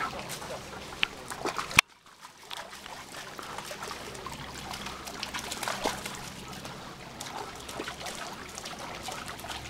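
Trickling water with scattered small ticks and crackles. A sharp click comes a little under two seconds in, and the sound then drops out almost to silence for about half a second.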